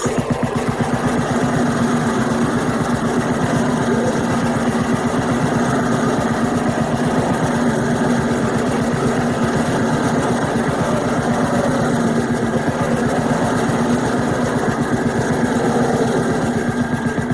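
Harsh noise music: a wall of dense, distorted electronic noise with a fast, even pulse and a steady low drone, engine-like in character. It comes in abruptly and runs without a break.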